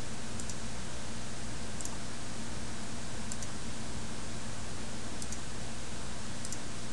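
Faint computer mouse clicks, five in all at irregular intervals of one to two seconds, each a quick double tick, over a steady recording hiss and low hum.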